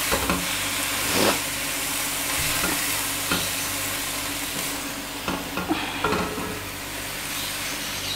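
Shredded cabbage, capsicum and carrot sizzling in a nonstick wok while a spatula stirs and tosses them, with irregular scrapes and knocks of the spatula against the pan over a steady frying hiss.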